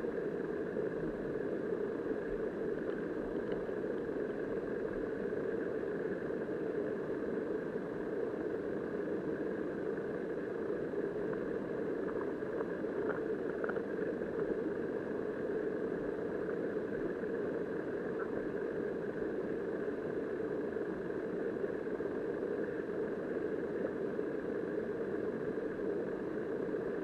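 Steady, muffled rush of flowing river water heard by a submerged camera, with a few faint ticks near the middle.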